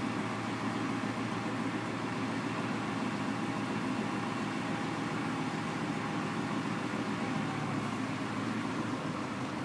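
Truck engine running steadily while it powers the end-dump trailer's raised hoist, with a faint high whine that fades out about three-quarters of the way through.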